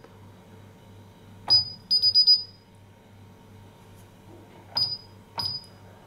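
Paradox alarm LCD keypad beeping as its keys are pressed: a single high beep about one and a half seconds in, then a rapid run of beeps, the keypad's confirmation tone for an accepted entry. Near the end come two more single key-press beeps as digits of a new user code are typed.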